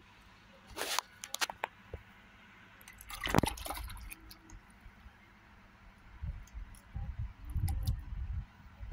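Water splashing and dripping as a cast net is hauled in by its rope through river water. The loudest splashing comes about three seconds in, and there is low rumbling near the end.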